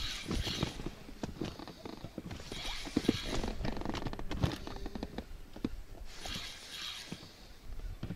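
Spinning reel cranked in short whirring bursts of about a second, roughly every three seconds: the turns and pauses of a stepped jig retrieve. Scattered light knocks come in between.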